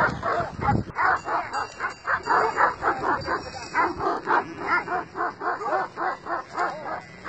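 A pack of Kangal and other shepherd dogs barking hard and without a break, several dogs at once, about three barks a second. These are guardian dogs of two sheep flocks challenging each other.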